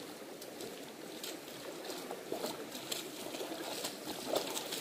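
Shallow stream running over stones, with rubber-booted footsteps splashing through the water, growing louder and more frequent in the second half as the wader comes close.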